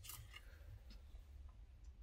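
Near silence: low room hum, with a few faint clicks in the first half second.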